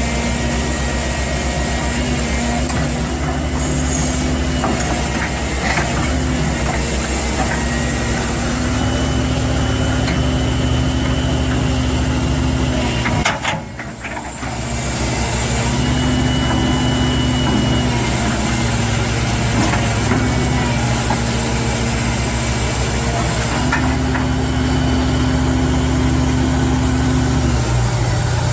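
Heavy machinery engine running steadily, with a brief drop about halfway where the sound cuts to another running engine.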